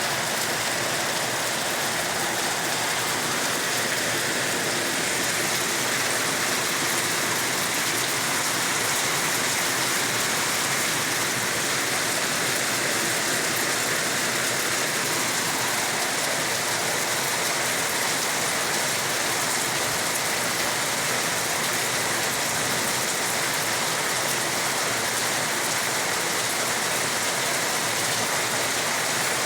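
Steady rain falling, an even, unbroken hiss of drops with no thunder heard.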